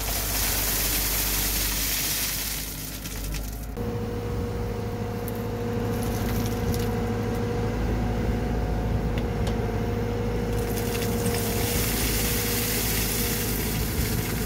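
Wheel excavator's diesel engine running while gravel pours out of the tipped bucket with a steady hiss. About four seconds in the pouring stops and a steady hydraulic whine takes over as the rotating bucket is swung and turned. In the last few seconds gravel starts pouring out again.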